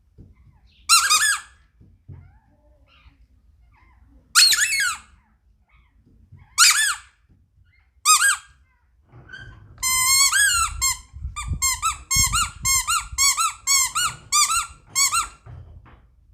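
Squeaky toy ball squeaking: four single squeaks a few seconds apart, then a quick run of about two squeaks a second for some five seconds.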